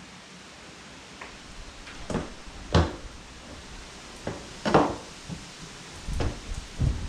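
About half a dozen separate knocks and clunks of motorcycle parts being handled and set down, the loudest two near the middle, over a steady hiss of heavy rain.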